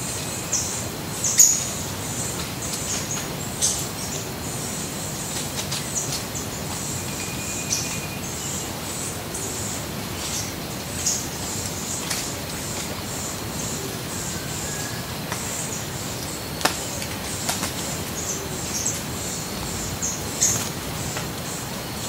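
Several birds calling in the treetops: many short, high chirps scattered throughout over a steady background hiss, with a brief whistled note about seven seconds in.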